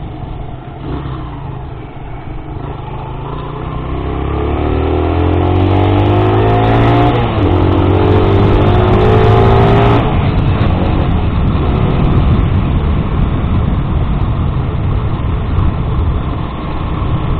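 Sinnis Max 2 motorcycle engine accelerating: its pitch rises, drops back at a gear change about seven seconds in, rises again, then the throttle closes at about ten seconds. Heavy wind noise on the rider's mic.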